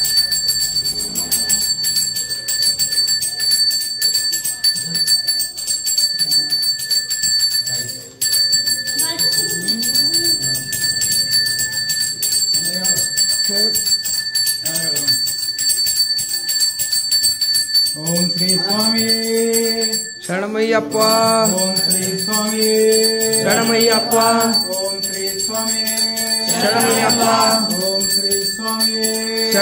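Brass pooja hand bell rung rapidly and continuously, with a steady metallic ringing over the fast strikes. About eighteen seconds in, a loud melody of held notes starts up over the bell.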